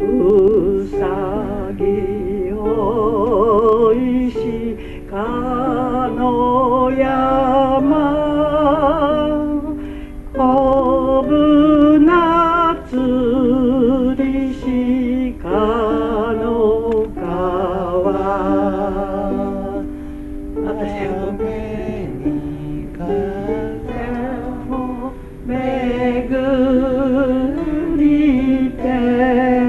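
Live solo concert music: a slow melody of long notes with wide vibrato over held lower notes, phrase after phrase.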